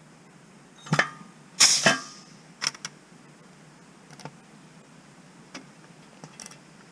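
A bench riveting machine setting AN426-4 aluminium rivets in an RV-14A vertical stabilizer skin: a sharp metallic clack, then a louder clash about half a second later with a brief ringing tail, followed by a few lighter clicks of the part and tooling being handled.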